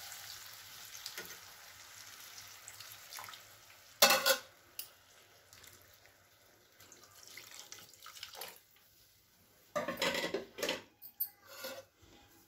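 Hot water pouring from an electric kettle into a pan of fried potatoes and masala: a steady splashing pour. There is a sharp knock about four seconds in, and a run of irregular knocks and clatter near the end.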